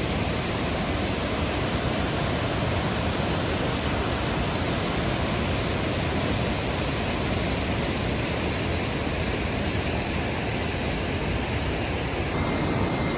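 Rushing water of the Agua Azul cascades: a loud, steady, even rush with no breaks.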